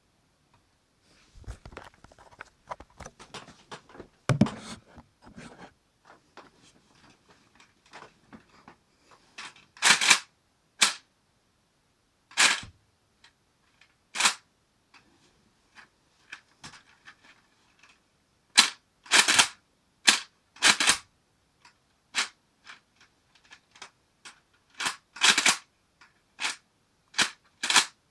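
The plastic mechanism of a working Lego pump-action shotgun being handled and worked: light rattling and clicking of the bricks, then a run of loud, sharp plastic snaps every second or two, some in quick pairs.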